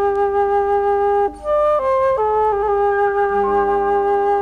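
Background music of long held notes: one note is held for over a second, the sound drops briefly, then the pitch steps through a few quick changes before settling on another held note.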